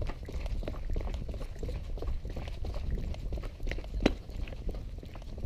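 Running footsteps on a wet path, a few steps a second with one heavier footfall about four seconds in, over steady wind and handling rumble on a moving action camera.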